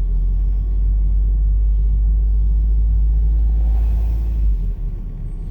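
A moving van's steady low rumble of road and engine noise, heard from inside the cab; the drone drops off noticeably about four and a half seconds in.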